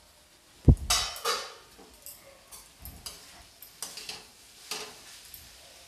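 A low knock, then a steel spatula stirring chunks of pumpkin in a kadai, a series of short scrapes against the pan about once or twice a second.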